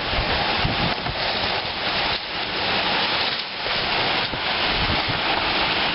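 Very heavy rain pouring down in strong wind: a dense, steady hiss of rain that swells and eases with the gusts.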